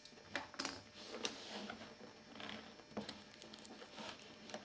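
Fingers picking and scraping at the seal on a cardboard box, trying to open it: faint scratching with a few sharp clicks, the loudest about a second in.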